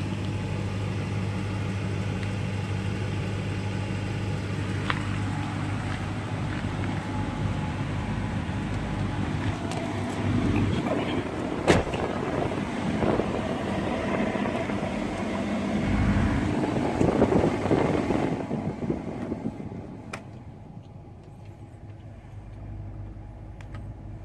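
Pickup truck engine idling with a steady low hum. A sharp click comes about halfway through. For the last few seconds the sound turns quieter and duller, with the treble gone.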